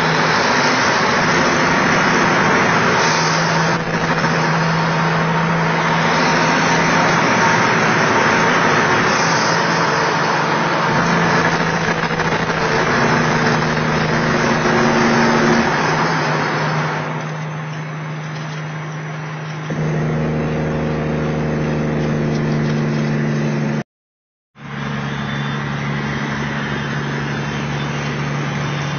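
Kenworth T600A semi truck's Caterpillar diesel engine running steadily at road speed, heard from inside the cab under loud road and tyre noise. About two-thirds of the way in the road noise drops and the engine's hum comes through more plainly, and near the end the sound cuts out for about half a second.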